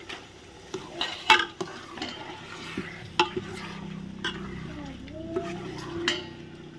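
Wet raw mutton pieces squeezed by hand and dropped into a pot of marinated meat, with a metal ladle stirring: squelching, mixing noise broken by sharp clinks against the steel pot and bowl, the loudest a little over a second in and again about three seconds in.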